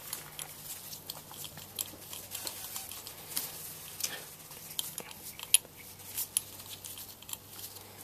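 Faint, irregular metallic clicks and light scrapes of a spark plug wrench being turned by hand, threading a new spark plug down into a motorcycle cylinder head.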